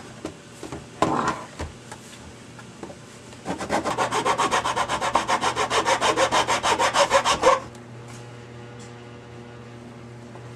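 Hand flat file rasping back and forth across the edge of a plastic switch cutout in a car's centre console, a fast, even run of strokes at about five a second lasting about four seconds, after a couple of knocks at the start. The hole is being filed out toward the marked line so the rocker switches fit tightly.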